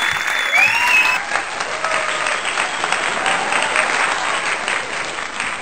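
Audience applauding, a dense crowd of claps, with a few rising shouts of cheering over it about a second in.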